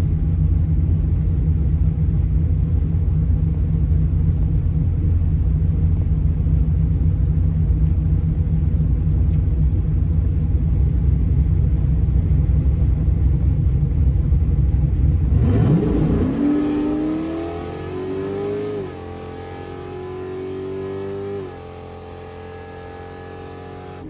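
Drag race car's engine rumbling steadily at the line. About fifteen seconds in it launches and accelerates away down the track, its pitch climbing and dropping back at two gear changes as it fades.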